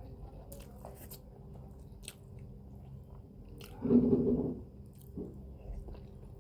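Close-up chewing and biting of food, with small wet mouth clicks. About four seconds in comes a louder, brief sound with a steady pitch, lasting about half a second.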